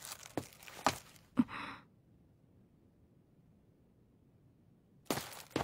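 A few light knocks and a short breath-like rush in the first two seconds, then near silence, then two more knocks near the end.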